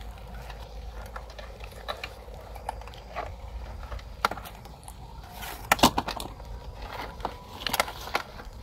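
Wire-mesh cage trap rattling and clicking as it is handled and shaken over a woven plastic sack to empty the catch into it. The clicks are scattered and irregular, with a louder flurry about two thirds of the way through.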